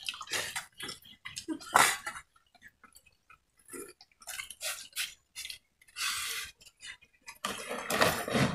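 Scattered clinks and scrapes of stainless steel plates, bowls and a serving pot as food is served and eaten by hand, with some chewing.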